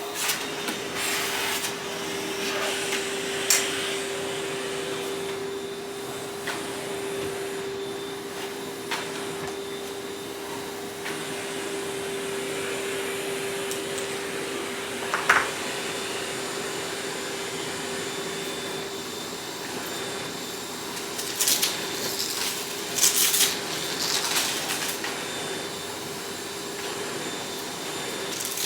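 Vacuum cleaner running steadily with a constant motor whine, broken by scattered sharp clicks and rattles, one loud click about halfway through and a cluster of them in the last third.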